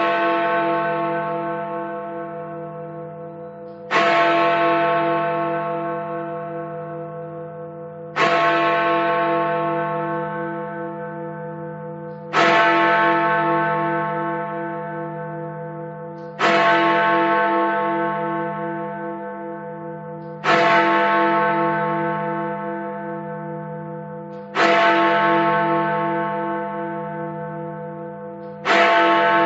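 Big Ben's Great Bell tolling midnight in a clock app's recording: a deep bell struck about every four seconds, each strike ringing on and slowly fading before the next.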